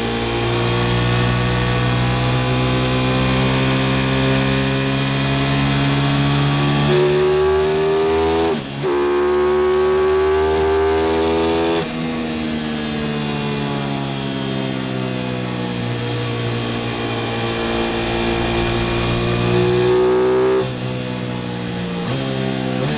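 Aprilia RS660's parallel-twin engine pulling hard on the move, its pitch climbing steadily and then dropping sharply at gear changes, about three times, over wind rush.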